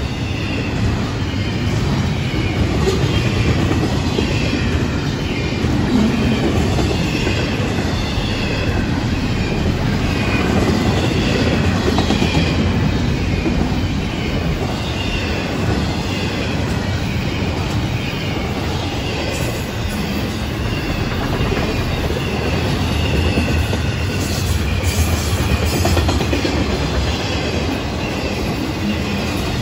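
Florida East Coast intermodal freight train's double-stack and trailer cars rolling past close by: a steady rumble of steel wheels on rail, with a wavering high wheel squeal over it and a few sharp clicks near the end.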